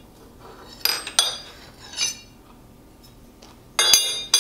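Steel parts clinking and ringing against a milling-machine vise as the knife blade is taken out: a couple of clinks about a second in, another at two seconds, and a louder ringing clatter near the end.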